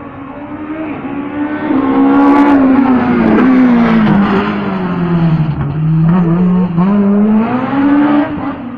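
Toyota rally car driving past at speed, its engine note rising and falling several times as it comes by and pulls away.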